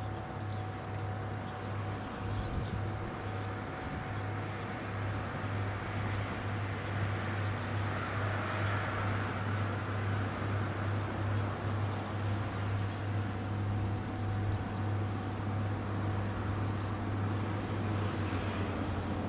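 A rice combine harvester's engine running steadily with a low hum, swelling briefly about eight to ten seconds in. A few short bird chirps come near the start.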